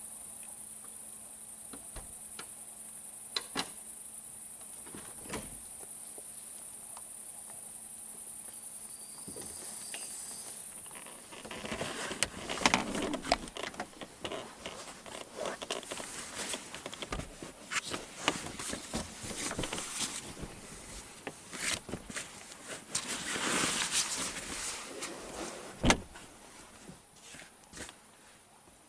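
Steady high-pitched chirring of night insects for the first ten seconds or so, then a long run of irregular knocks, clicks and rustling handling noises from setting up the campervan, with one sharp knock near the end.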